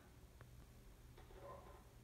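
Near silence: room tone, with one faint tick about half a second in.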